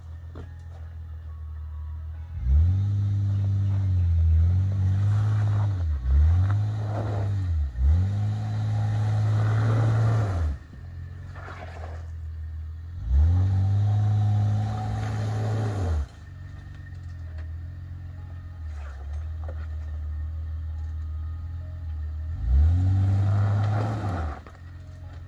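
Honda Ridgeline's 3.5-litre V6 revving hard about six times under load as the truck climbs a muddy, rocky slope. Each rev rises quickly, holds for one to three seconds, then drops back to a low steady running sound.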